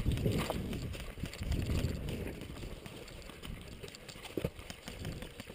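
Footsteps of a person running and then crouching on dirt and dry grass, with gear jostling against the body-worn camera; the thuds are heaviest over the first two seconds, then settle into quieter shuffling, with a single sharp knock about four and a half seconds in.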